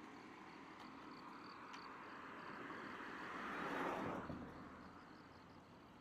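A car passing by on the road, its tyre and engine noise swelling to a peak about four seconds in and then fading away.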